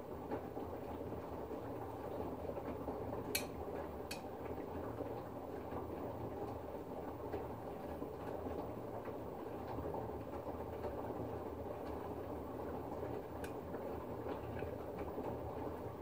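LG front-loading washing machine turning wet laundry in water during a 60 °C wash: steady sloshing of water and fabric over the drum's motor running, with a few sharp clicks, two of them about three and four seconds in.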